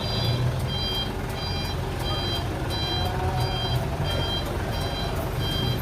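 A bus's electronic warning beeper sounding steadily, about three beeps every two seconds, over the low hum of the bus engine.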